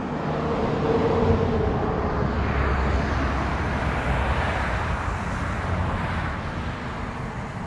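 Motor-vehicle noise passing by: a low rumble and rush that swells over the first second or so and slowly fades toward the end.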